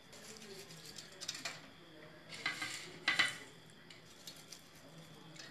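Faint rustling and light clatter as chopped coriander and mint leaves are scattered by hand over rice in a pot, with a few short, louder rustles in the middle.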